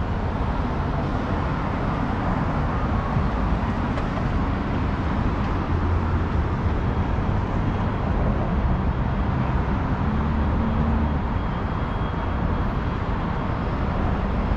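Steady downtown street ambience: a continuous low rumble of road traffic with no single event standing out.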